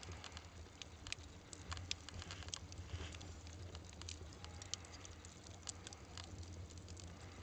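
Split firewood burning in a clay oven, crackling with irregular sharp pops, several a second, over a low steady rumble.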